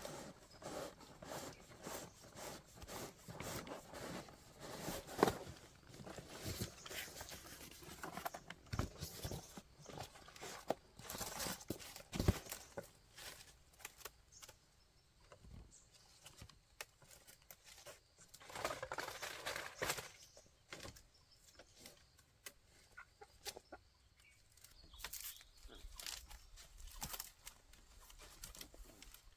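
Chickens clucking amid frequent rustling and short knocks.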